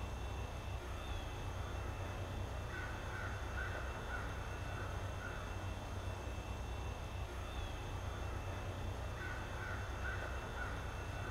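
Crows cawing: a run of several caws about three seconds in and another near the end, over a steady low hum.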